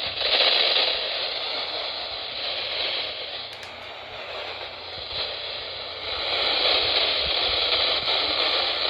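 Heavy static hiss from a weather radio on a weak, barely received NOAA Weather Radio signal. The noise fades down for a few seconds and swells back up about six seconds in.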